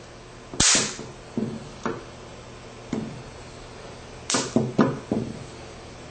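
Sharp electric snaps of high-voltage sparks from a disposable camera's flash circuit jumping between the foil fingertip contacts of a home-made taser glove. There is a loud snap about half a second in and another about four seconds in, with several smaller ones at irregular intervals.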